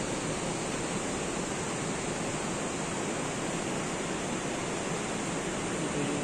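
Steady rushing noise at an even level, with no distinct events.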